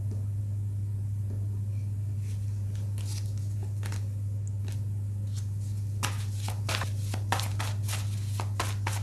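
Tarot cards being shuffled by hand: a few soft card clicks, then from about six seconds in a quick run of crisp snaps as the deck is worked, over a steady low hum.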